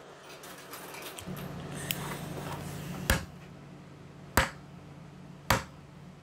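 Three sharp clicks about a second apart, typical of small plastic toy parts being handled and snapped together, over a faint steady hum.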